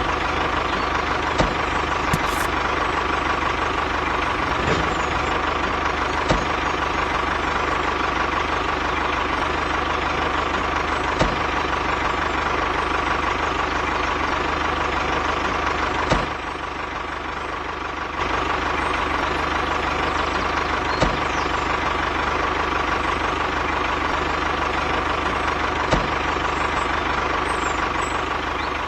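A small motor running steadily with a constant whine and a few light clicks; it drops in level for about two seconds partway through.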